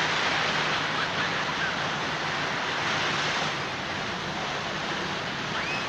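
Ocean surf washing onto a sandy beach: a steady, even rush of noise, with a few faint high calls in the background.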